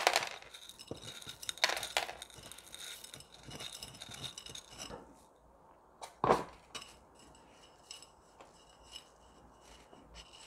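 Masato (decomposed granite grit) pouring and rattling out of a tipped terracotta pot into another pot, with clinks and knocks of the clay pots. The rattle stops about five seconds in, a single knock follows a second later, then only small faint clicks.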